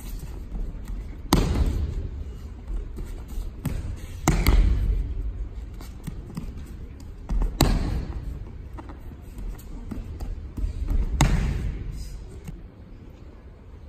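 Aikido breakfalls: a thrown partner's body and arms slapping onto tatami mats, four loud slams about three to four seconds apart, each echoing through a large hall.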